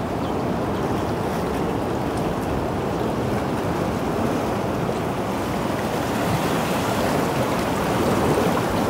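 Sea surf washing against shoreline rocks, a steady rushing noise that grows a little louder near the end.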